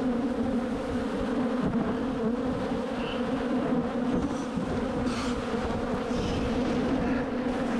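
Swarm of honeybees from an opened hive flying close around the microphone, a loud, steady buzzing hum.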